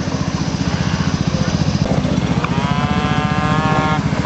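A scooter's small engine running with a steady low pulse. A little past halfway a long pitched call sounds over it, rising a little and then held for about a second and a half before stopping.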